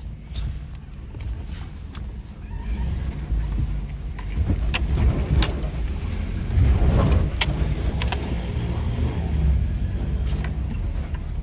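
A car driving over a rough, rain-rutted dirt road, heard from inside the cabin: a low engine and road rumble that grows louder in the middle, with a few sharp rattling knocks as it jolts over bumps.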